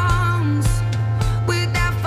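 Pop song: held bass notes under a melodic lead, with percussion hits.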